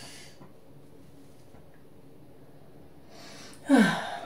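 A woman's sharp exhale about three and a half seconds in, ending in a short voiced sigh that falls in pitch; a fainter breath at the very start.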